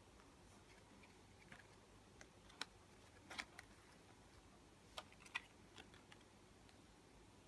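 Near silence with a few faint, scattered clicks and taps, about five in all, spread over the middle of the stretch.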